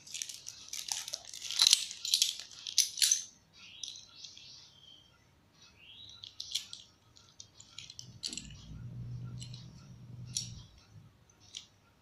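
Thin plastic zip bag crinkling as small plastic central fuses are pulled out of it, loudest in the first three seconds, then scattered light clicks and rustles as the fuses are handled. A low hum sounds in the background for about two seconds past the middle.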